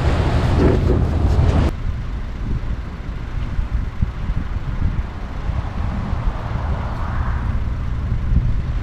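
Wind buffeting the camera microphone on an open beach, a heavy low noise with no distinct events. About two seconds in it drops suddenly to a quieter, steadier wind noise.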